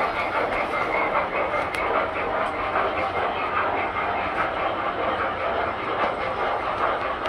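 Tinplate model trains running on the layout: a steady running hum and rattle of motors and wheels on the track, with a couple of light clicks.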